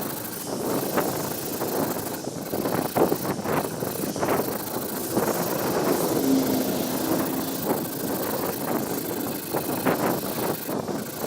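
Repeated scraping strokes of a hand tool shaping a wooden cigar box guitar neck, over a steady wash of road traffic.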